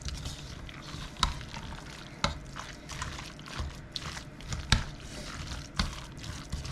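A spoon stirring a thick, creamy mixture of meat and mushroom soup in a bowl, wet and squelching, with a few sharp clinks of the spoon against the bowl.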